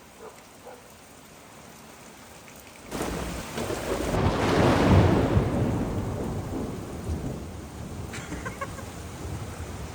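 Thunder: a sudden crack about three seconds in, swelling into a deep rumble that peaks a couple of seconds later and slowly rolls away, over a faint hiss of rain.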